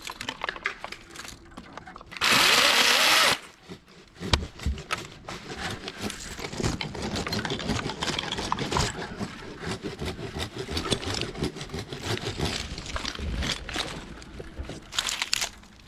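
DeWalt 60V battery top-handle chainsaw cutting pine limbs: a loud burst about two seconds in lasts about a second, then a long stretch of sawing with crackling and knocking of wood.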